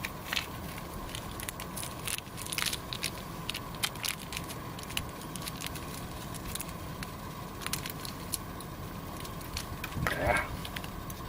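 Small wood fire crackling, with irregular sharp pops and snaps. About ten seconds in, a brief pitched sound rises and falls over it.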